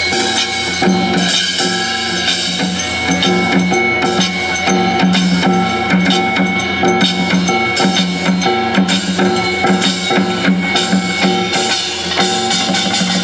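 Live Korean traditional (gugak) ensemble music: dense, rapid drumming and percussion under sustained held instrument tones.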